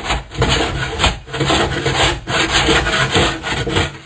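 Hand block plane shaving the edge of a wooden door, working in repeated short strokes about two a second.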